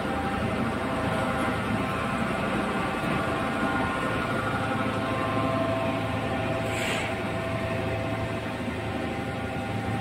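Machinery of a plastic film washing and recycling line running: electric motors and drives give a steady hum with several steady tones. A brief hiss is heard about seven seconds in.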